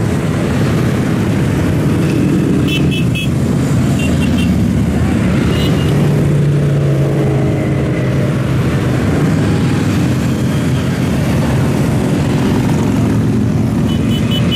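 Heavy road traffic, largely motorcycles, passing steadily with engines running, one engine note swelling and fading around the middle. A few short high chirps sound about three and four seconds in.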